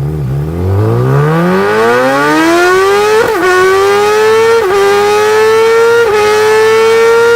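Superbike engine accelerating hard, its exhaust note climbing steeply from low revs to a high wail over about three seconds. It then holds near the top of the rev range, with a brief dip in pitch roughly every second and a half as the bike shifts up through the gears.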